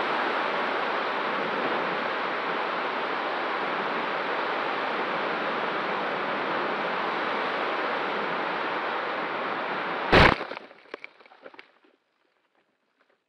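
Steady rushing of strong wind on the microphone. About ten seconds in comes one sharp, loud knock, followed by a few fading rattles before the sound cuts out.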